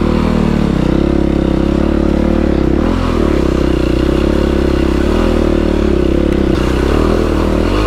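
Dirt bike engine running at steady throttle while riding, with a brief dip and pick-up in revs about three seconds in.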